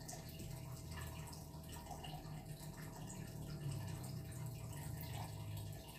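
Quiet room tone: a low, steady hum with a faint background hiss.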